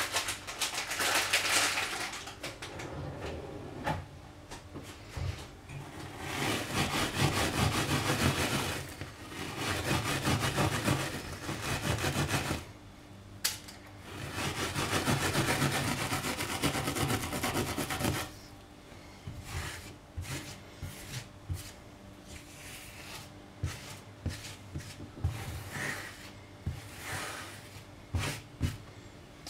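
Stainless steel scouring pad scrubbed back and forth over a hob, grinding at melted plastic stuck to the surface. It comes in four long bouts of scrubbing, then gives way to lighter scattered scratches and taps in the last ten seconds or so.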